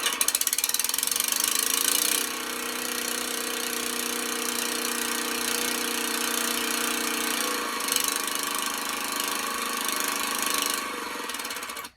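Jaws of life hydraulic rescue tool running, a steady engine-like drone from its power unit, louder for the first two seconds and cutting off suddenly at the end.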